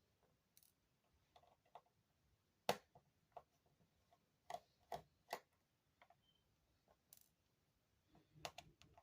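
Scattered small, sharp clicks and taps, about a dozen, against near silence, from tools and small parts being handled while an iPhone is worked on.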